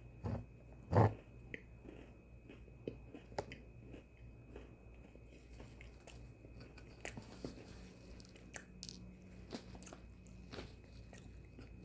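A person chewing Oreo sandwich cookies close to the microphone: two louder crunches in the first second, then soft crunching and small mouth clicks.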